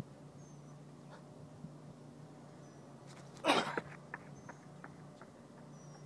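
A sharp rush of sound a little past halfway as the sprinter drives out of his crouched start, then his footfalls in Vibram FiveFingers on the rubber track, about three a second, fading as he runs off.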